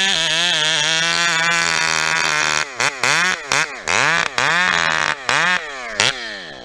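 Two-stroke chainsaw cutting into a log, running at one steady high speed for about two and a half seconds. After that, the engine speed rises and falls repeatedly, and it drops toward idle near the end.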